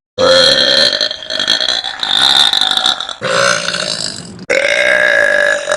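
Girls burping deliberately: a run of long, loud, drawn-out burps, each held steady in pitch for one to three seconds, with abrupt breaks between them.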